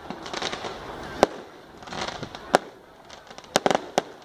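Aerial firework shells bursting: a sharp bang about a second in, another about two and a half seconds in, then a quick run of four or five bangs near the end, with fainter crackling in between.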